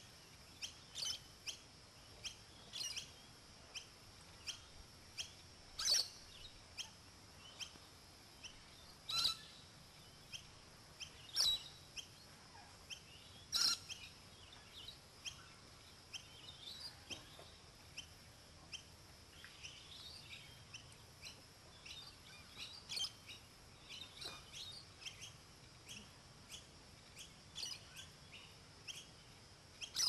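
Australian king parrots chirping while feeding: a steady scatter of short, high chirps, with a few louder, sharper calls standing out in the first half.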